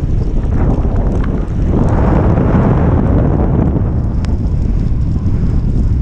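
Strong wind buffeting a helmet-mounted camera microphone on a fast bicycle descent, a loud, steady low rumble over the hiss of tyres on wet asphalt. The noise swells louder for about a second and a half around two seconds in.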